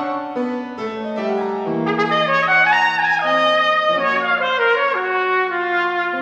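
Solo trumpet playing a melodic passage of held notes that step from one pitch to the next, each lasting about half a second to a second.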